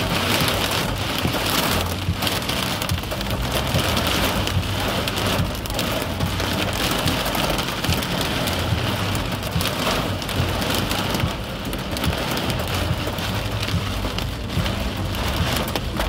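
Heavy rain pelting a car's roof and windshield, heard from inside the cabin as a steady, dense hiss of countless drop impacts.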